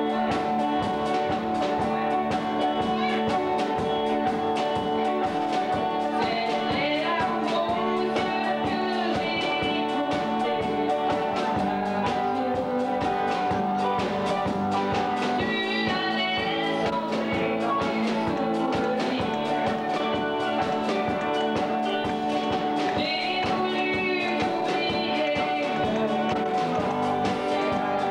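Live band music: electric guitars, a drum kit and an electric keyboard playing a steady rock-style song.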